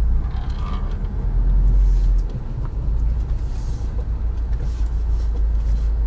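Low, steady rumble inside the cabin of a Subaru WRX STI as it drives slowly: its turbocharged flat-four engine and road noise, a little louder for about a second near the start.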